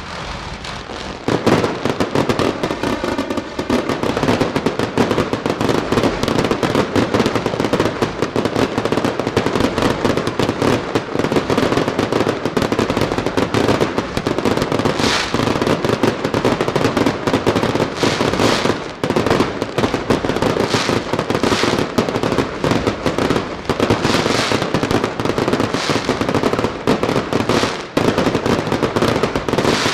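Fireworks display: a dense, continuous barrage of crackling reports from many shells and crackling stars bursting at once, jumping louder about a second in.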